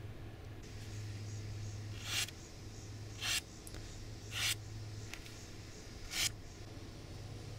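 A knife blade forged from a steel file slicing through a sheet of paper four times, each cut a short crisp hiss. It is a paper-cutting test of the edge's sharpness.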